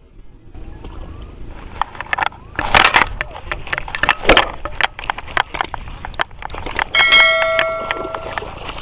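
A run of sharp clicks and knocks from hands working a baitcasting rod and reel. About seven seconds in comes a bright ringing chime, the bell sound effect of a subscribe-button animation, lasting about a second and a half.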